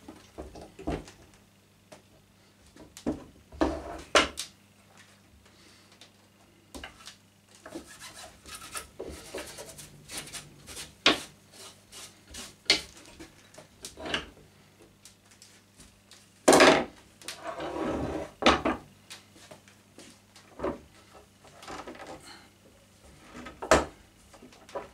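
Steel bar clamps and clamped wooden strips being handled on a wooden workbench: scattered knocks and clicks, the loudest about two-thirds of the way through, with quieter rubbing of a rag wiping the glued boards in between. A faint steady hum underneath.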